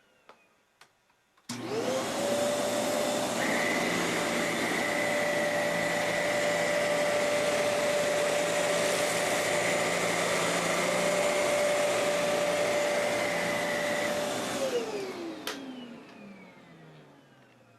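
Kenmore Elite 31150 upright vacuum cleaner switched on, its motor spinning up within a fraction of a second to a steady whine over loud rushing air. It runs evenly for about thirteen seconds. Then it is switched off and winds down with a falling whine, and a click follows.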